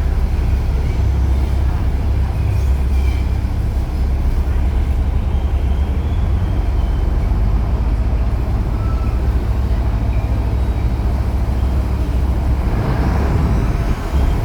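Engine of a river shuttle boat running steadily under way, a deep, constant rumble.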